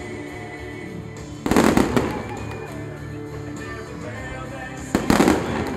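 Fireworks going off in two loud bursts, about a second and a half in and again near the end, each a quick cluster of bangs and crackles, over steady background music.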